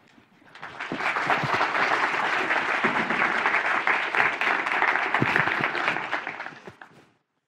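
Audience applauding. The clapping swells over the first second, holds steady, and dies away near the end.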